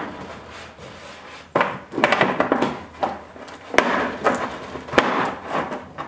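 A 3-inch PVC elbow being pushed and worked into a hole in the side of a plastic 5-gallon bucket: hard plastic scraping and rubbing on plastic in three short bursts, each starting with a sharp knock.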